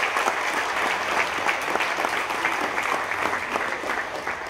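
Crowd applauding with many hands clapping, dying down near the end.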